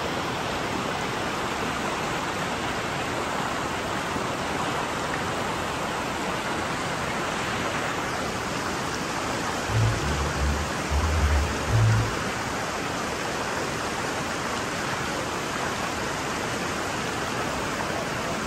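Steady rushing of flowing river water, with a few short low thumps about ten to twelve seconds in.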